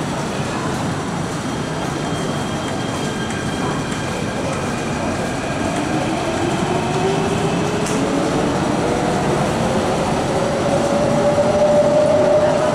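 MTR K-Train electric metro train running through the underground station without stopping: a rumble builds as it comes in, and from about halfway a single traction-motor whine climbs steadily in pitch as the train gathers speed, getting louder near the end.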